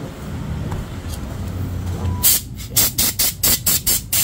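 A low steady rumble, then about halfway in a compressed-air blow gun fires a quick run of short hissing blasts, about four a second, blowing out a motorcycle fuel tank.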